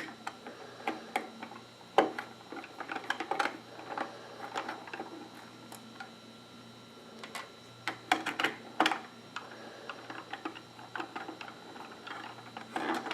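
Irregular clicks, taps and short scrapes of a Samsung 850 EVO SSD's casing being worked open by hand, the hardest clicks about two seconds in and around eight to nine seconds.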